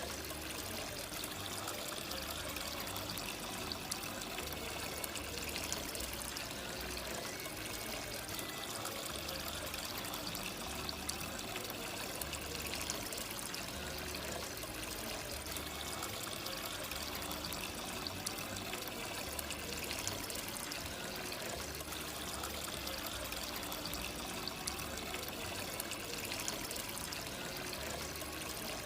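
Water trickling and splashing steadily down a small indoor tabletop waterfall fountain.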